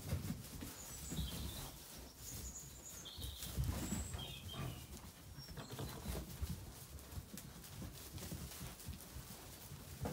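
Zwartbles rams jostling and trampling in straw bedding, with many dull thuds and knocks of hooves and bodies as they fight out a pecking order. A few short, high bird chirps come in the first half.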